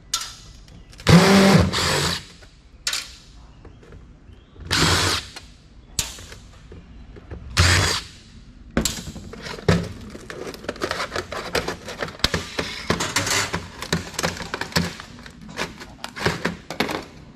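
Short runs of a cordless power driver, then a long stretch of rapid clicking and rattling as metal and plastic computer parts are handled and pulled apart.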